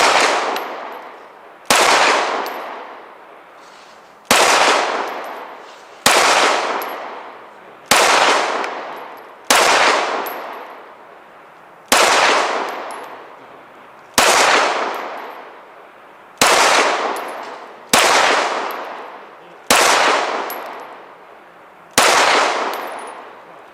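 Twelve 9mm pistol shots fired one at a time at a slow, even pace, about one every two seconds. Each shot rings out with a long echo that fades before the next.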